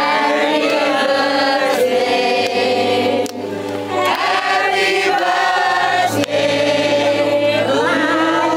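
Music of several voices singing together, in long held notes that slide from one pitch to the next.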